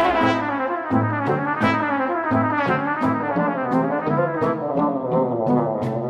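Background music: a melody over a stepping bass line, with a quick, steady beat.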